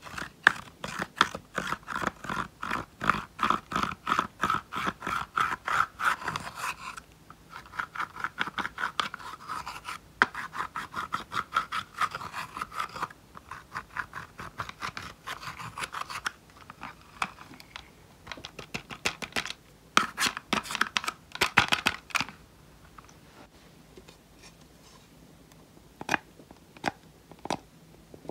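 A small metal-tipped tool scratching and crumbling pressed face powder and eyeshadow in a plastic compact, in quick repeated strokes of about four a second. The strokes come in runs broken by short pauses, and thin out to a few scattered scrapes near the end.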